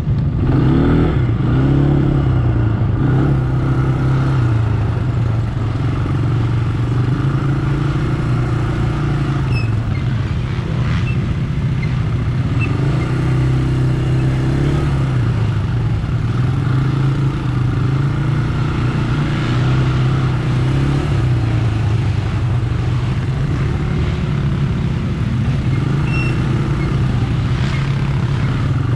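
ATV engine running close by, its pitch rising and falling over and over with the throttle as it moves at low speed.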